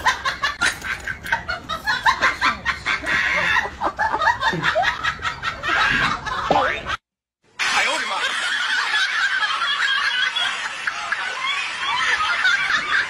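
Rapid snickering laughter for about seven seconds, breaking off for a moment, then going on as a denser, unbroken stretch of laughter.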